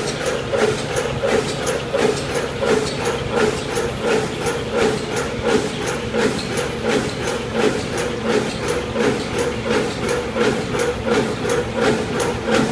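Paper fries carton forming machine running at full speed, its mechanism clacking in an even rhythm of about three strokes a second, one per carton formed, over a steady mechanical drone.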